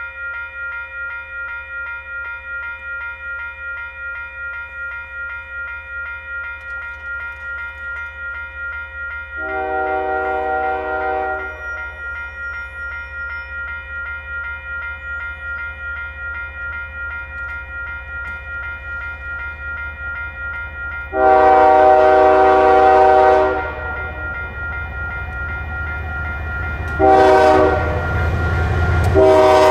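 Grade-crossing warning bell ringing steadily at a quick, even beat while an approaching Canadian Pacific diesel locomotive blows its horn for the crossing: a long blast, another long blast about ten seconds later, then a short one and a final long one starting near the end. This is the standard long-long-short-long crossing signal. The locomotive's low engine and wheel rumble grows in the last few seconds.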